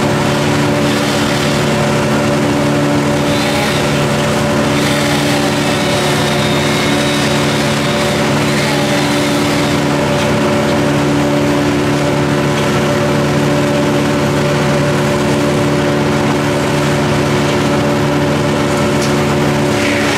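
An engine running steadily at constant speed, with no revving, the sound of powered tree-removal machinery at work.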